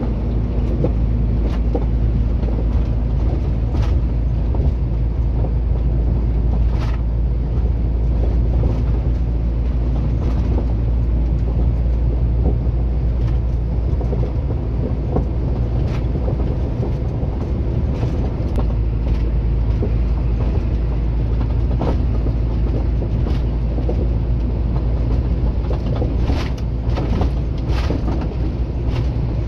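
Inside a moving truck's cab at highway speed: a steady low engine and road drone, with scattered short creaks and rattles from the cab, several of them close together near the end.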